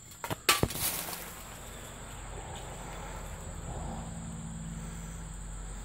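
Insects trilling steadily in one high, even tone, with a few sharp knocks about half a second in and a low steady hum underneath from about a second in.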